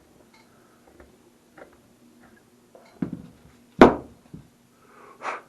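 Faint scraping clicks from a Forstner bit turned by hand in a wooden guitar fretboard. Then come a few handling knocks: a dull thump about three seconds in, a sharp knock, the loudest, about a second later, and another knock near the end.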